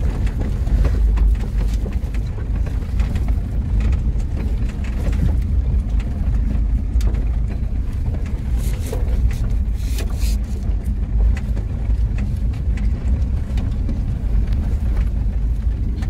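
Off-road vehicle driving over rough dirt ground, heard from inside the cab: a steady low rumble of engine and road noise with scattered knocks and rattles.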